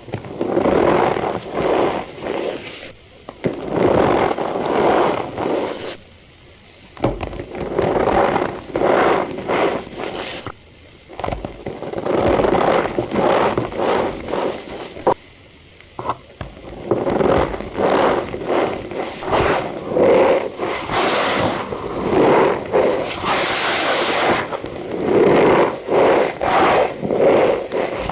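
Cornstarch powder squeezed and pressed by hand, giving runs of quick squeaky, scraping strokes with a few short pauses between them.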